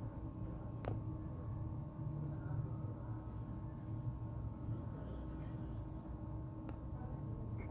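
Steady low background hum with two faint sharp clicks, one about a second in and one near the end.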